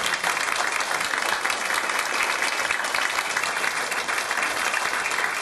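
Audience applauding: dense, steady clapping from a large seated crowd.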